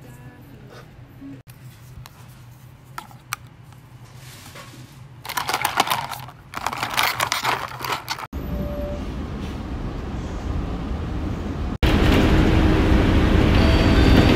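Ice and a straw rattling against the plastic lid of an iced drink cup as it is stirred, then the steady rumble of a moving bus heard from inside the cabin, louder in the last few seconds.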